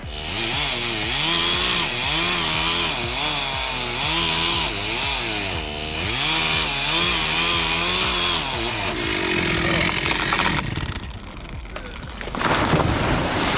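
Chainsaw engine revving up and down over and over as it cuts, for about nine seconds, then dropping away. An even rushing noise comes in near the end.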